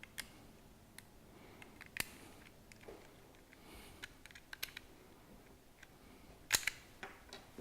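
Scattered small metal clicks and ticks of an Allen key turning the two blade-clamp screws on a jigsaw's blade holder, roughly one a second, the loudest near the end.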